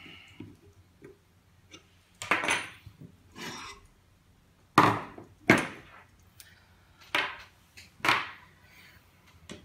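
Metal printer parts and a pair of pliers being handled and set down on a wooden tabletop: a series of about six separate knocks and clatters, the sharpest about five seconds in.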